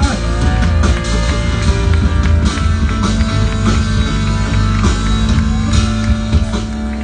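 Live church band music: an electric keyboard over heavy bass, with a long held note coming in near the end.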